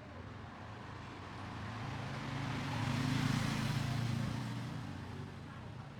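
A road vehicle passing by, its engine hum and noise swelling to a peak about three to four seconds in and then fading away.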